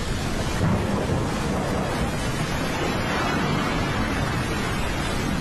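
Steady rushing noise of a flash flood's water, with wind buffeting the phone's microphone and a low rumble underneath.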